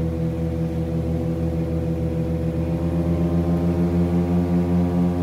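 Twin six-cylinder Lycoming O-540 piston engines and propellers of a Britten-Norman Islander droning steadily on short final, heard from inside the cabin, with the pitch creeping slightly higher from about halfway through.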